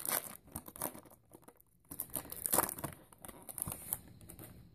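Foil Pokémon booster pack wrapper crinkling and tearing as it is handled and opened, in irregular bursts with small clicks, loudest around the middle.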